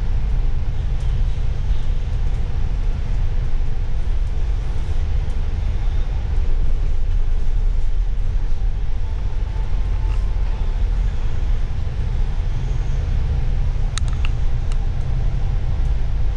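City bus running, a steady low engine and road rumble, with a few sharp clicks or rattles near the end.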